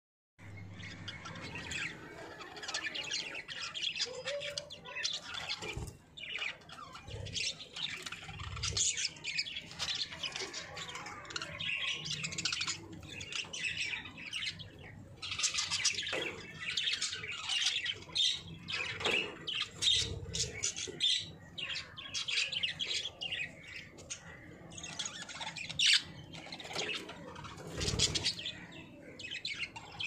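A small flock of budgerigars chattering and warbling without a break, a dense tangle of short high chirps and calls from several birds at once.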